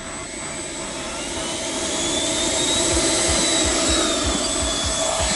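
The twin 90 mm electric ducted fans of a Freewing F-15C Eagle RC jet spooling up: a rushing jet-like roar with a thin whine that rises in pitch, growing steadily louder, with low thumps joining about halfway through.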